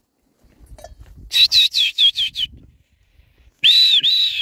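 High whistled calls: a quick run of about six short, hooked chirps, then three longer arched whistles near the end.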